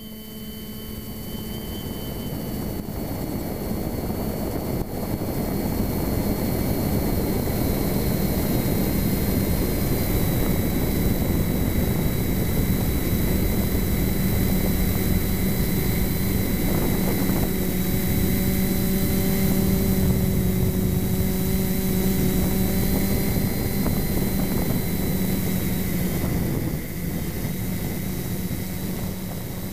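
Quadternium Spidex V3 quadcopter's motors and propellers in flight, picked up by the GoPro mounted on it: a steady low hum with high whines over a rushing noise. It fades in over the first few seconds and eases slightly near the end.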